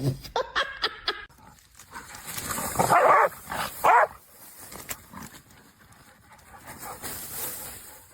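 A dog vocalizing in a few short pitched calls that bend in pitch: near the start, around three seconds in and again about a second later, then quieter.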